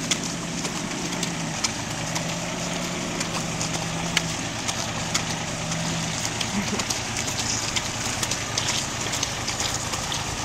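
Compact tractor's engine idling with a steady hum as the pony cart passes it, over the rattle and crunch of the cart's wheels and the pony's hooves on the road, which come through as many sharp clicks.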